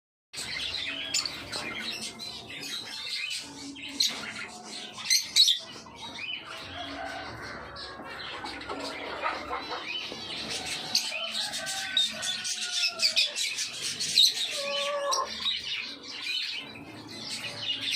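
Pet cockatiels and finches chirping and squawking, many short calls overlapping, with some longer pitched calls about two-thirds of the way through.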